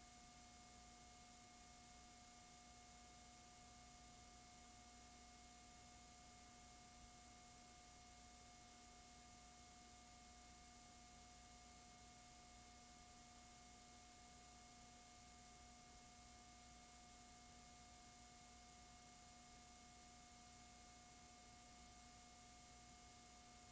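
Near silence: a faint, steady hiss and hum that never changes.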